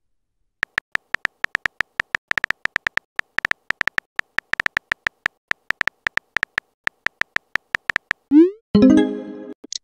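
Rapid synthetic keyboard tap clicks from a texting-story app as a message is typed, several a second. Near the end a short rising swoop and a brief chime play as the message is sent.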